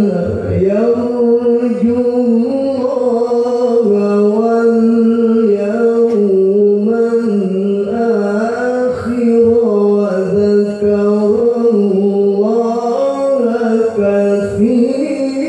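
Male Quran reciter chanting in the melodic tilawah style, drawing out one long ornamented phrase with held notes that step up and down in pitch, broken only by brief pauses.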